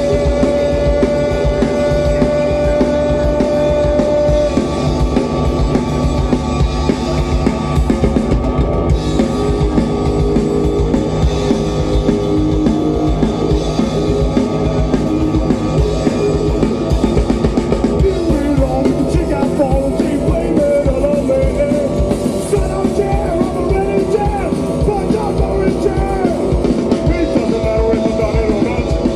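Live rock band playing a fast, loud song with a driving drum kit, electric guitars and a singer.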